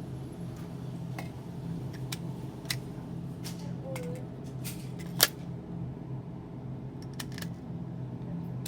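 Scattered light clicks and one sharp, louder click about five seconds in, over a steady low hum.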